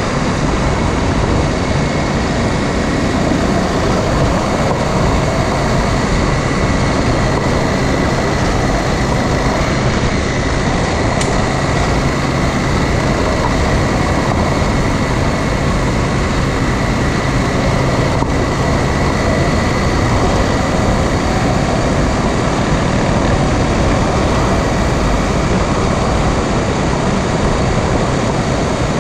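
Dual-sport adventure motorcycle underway at a steady pace: a steady drone of engine and wind noise with a faint constant whine.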